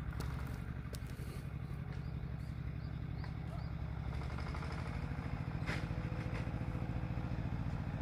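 A motor idling steadily: a low, even hum with a fast regular pulse, growing a little louder about halfway through.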